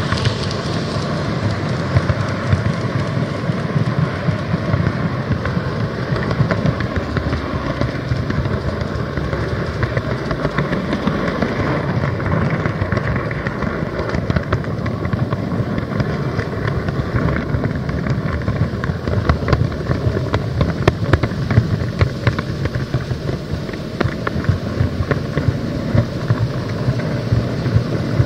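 N gauge model train running along the track, heard from the onboard camera car. There is a steady rolling and motor noise with quick clicks from the wheels crossing rail joints, which come thicker in the second half.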